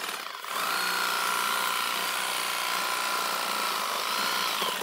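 Battery-powered handheld tea harvesting shear running as it cuts tea shoots, its electric motor and reciprocating blades giving a steady whine from about half a second in. The pitch wavers briefly near the end.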